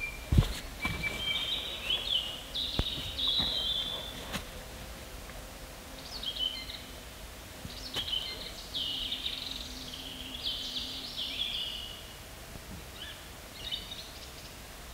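A songbird singing short phrases of quick, high notes, in bursts with pauses between them. A couple of footsteps and a knock sound at the very start, with a few faint clicks later.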